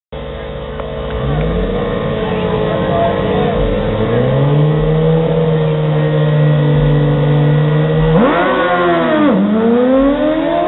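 Two sportbike engines at a drag strip start line, revved up and held at a steady high pitch while staging. About eight seconds in they launch: the pitch climbs sharply, dips briefly about a second later at an upshift, and climbs again as the bikes accelerate down the track.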